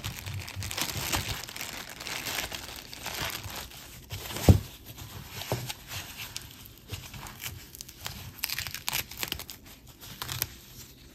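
Packaging crinkling and rustling in irregular handfuls as jewelry is unwrapped, with one sharp knock a little before the middle.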